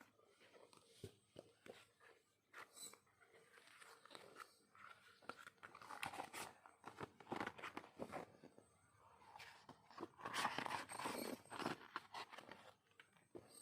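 Packaging and merchandise being handled: rustling, crinkling and small clicks and taps, busiest and loudest about ten seconds in.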